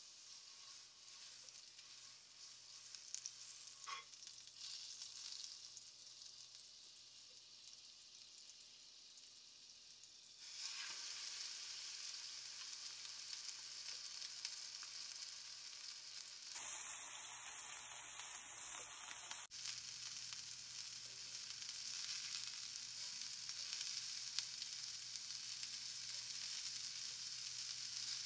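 Butter sizzling faintly in a hot cast-iron skillet. About ten seconds in, a raw beef patty goes in and the frying grows louder, with a much louder stretch of sizzling lasting about three seconds past the middle.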